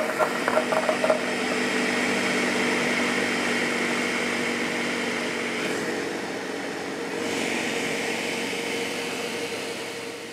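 Ninja blender running, blending frozen acai and frozen banana chunks with a little almond milk into a thick smoothie. Frozen pieces clatter against the jar in the first second, then a steady motor drone that eases briefly about six seconds in and winds down near the end.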